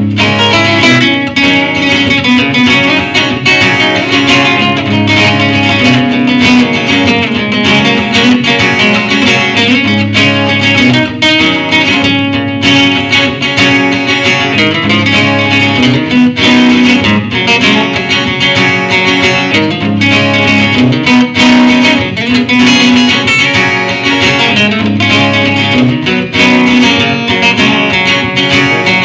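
Acoustic guitar played through PA speakers, a continuous instrumental passage without singing.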